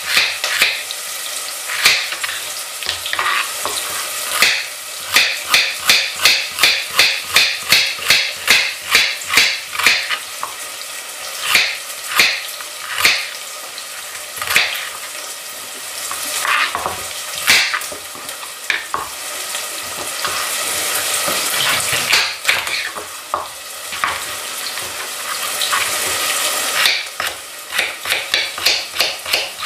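Kitchen knife chopping a carrot into half-rounds on a cutting board, in runs of quick, regular chops about two a second, with pauses between them. Onion frying in butter sizzles in a pot underneath, louder in the middle and later part.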